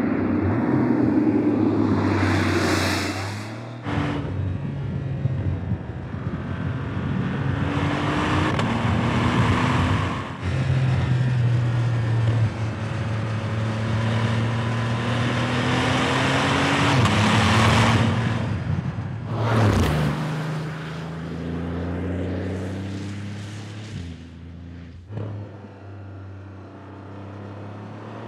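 2026 Porsche 911 Turbo S (992.2) twin-turbo flat-six running hard on a race track through its titanium exhaust. The engine note climbs in pitch and drops back several times, with a loud swell about two to three seconds in and again near the end of the second third.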